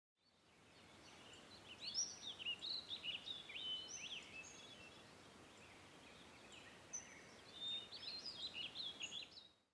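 Songbirds chirping faintly over a soft outdoor hiss, in two spells of quick rising and falling notes.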